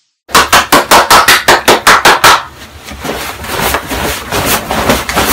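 A fast run of loud, even knocks, about six or seven a second, lasting about two seconds, followed by quieter clattering.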